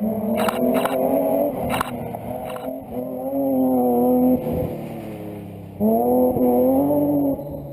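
Rally car engine under hard throttle, heard from inside the cabin, with a slowly rising pitch. It eases off about four and a half seconds in and comes back on strongly just before six seconds. Several sharp knocks or cracks sound in the first few seconds.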